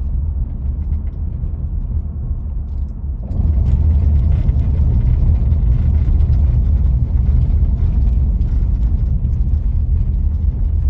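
Road noise inside a moving car: a steady low rumble of tyres and engine. About three seconds in it turns louder and rougher as the tyres roll onto a brick-paver road surface.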